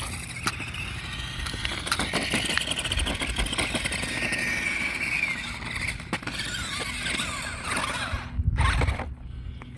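Monster Jam Megalodon RC truck driving on a road: its electric motor whines, rising and falling with the throttle, over tyre noise and scattered knocks. A heavier thump comes about eight and a half seconds in, after which the motor whine stops.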